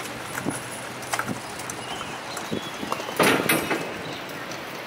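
City street sound at a crosswalk: a steady background noise with scattered short clicks and knocks, and one louder clatter a little past the middle.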